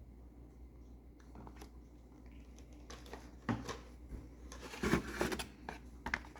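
Toy car packaging being handled: scattered clicks, knocks and rustles of cardboard and plastic, busiest and loudest about five seconds in.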